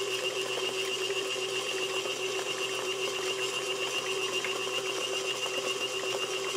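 Electric stand mixer running at a steady speed, its beater creaming a thick butter-and-sugar cake batter in a metal bowl; an even motor hum with a high whine over it.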